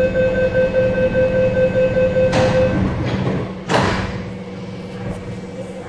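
Door-closing sequence on an MTR East Rail Metro Cammell EMU: a rapid beeping warning tone for almost three seconds, then the sliding doors run shut and close with a sharp thud. The train's steady equipment hum continues underneath.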